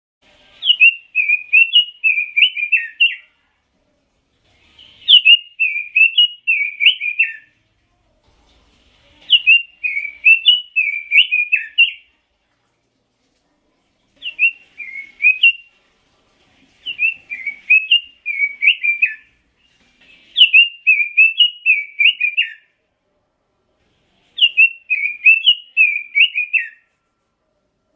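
Red-billed leiothrix (Pekin robin) singing: seven fast warbling phrases of about two to three seconds each, separated by short pauses.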